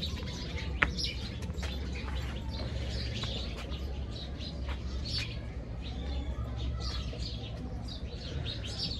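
Small birds chirping in quick, scattered calls, over a steady low rumble, with a single sharp click about a second in.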